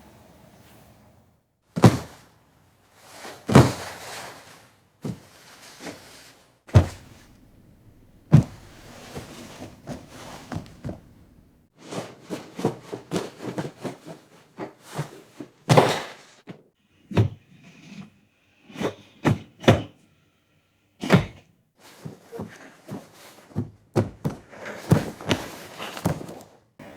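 AI-generated sound effects: an irregular series of thuds and knocks, some single and some in quick flurries, with short pauses between.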